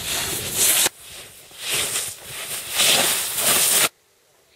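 Snowboard edges scraping and hissing through slushy spring mogul snow, swelling in several surges as the rider turns. The sound cuts off suddenly near the end, leaving near silence.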